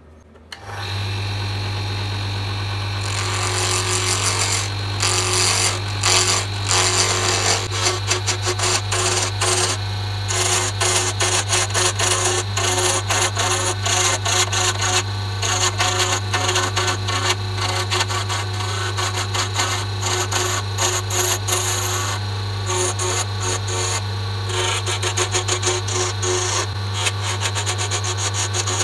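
Small wood lathe switching on about a second in and spinning with a steady motor hum. From about three seconds in, a turning tool cuts a cocobolo and epoxy resin pen blank, a rough, rapid scraping with a few short pauses.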